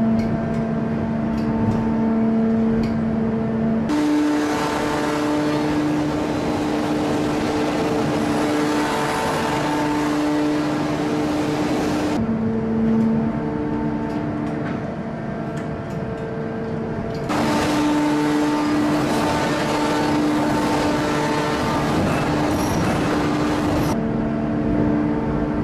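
Heavy hydraulic forging press and manipulator at work on a hot steel billet: a steady machine whine that shifts pitch, with two long stretches of loud rushing hiss, roughly a third of the way in and again past the middle.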